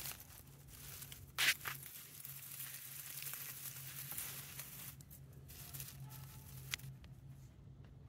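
Dry grass and twigs of a house wren nest rustling and crackling as a hand and phone brush against them close to the microphone. The loudest crackles come about a second and a half in, and the rustling dies down near the end.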